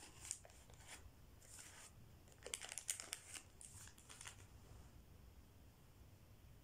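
Faint crinkling and rustling of a plastic wet-wipe packet as a wet wipe is pulled out and unfolded by hand, in short scattered bursts that are busiest in the middle and die away near the end.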